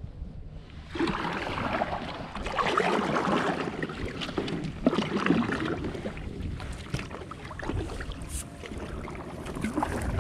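Kayak paddle strokes in sea water, splashing and dripping, starting about a second in, over a low rumble of wind on the microphone.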